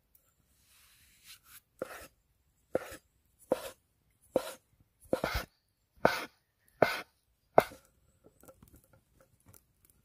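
A large cleaver chopping through folded fresh pasta dough onto a wooden cutting board, about eight sharp knocks roughly one a second as it cuts the dough into ribbons. Softer rustling follows near the end as hands loosen the cut noodles.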